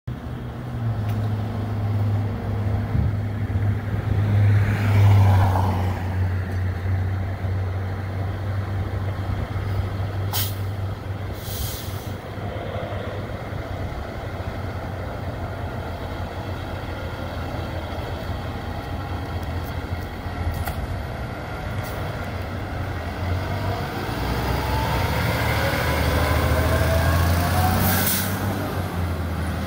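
Heavy rescue fire truck's diesel engine running steadily, with short air-brake hisses about ten and twelve seconds in and again near the end. Near the end the engine revs up, rising in pitch, as the truck pulls out.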